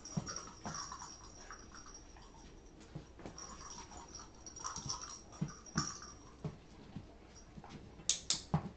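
Weimaraner whimpering faintly and breathing as she noses into a fabric storage box, with small knocks and rustles. Two sharp clicks close together near the end.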